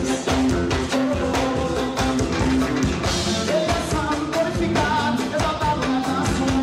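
Loud music of a gospel song, with a steady drum beat and held notes.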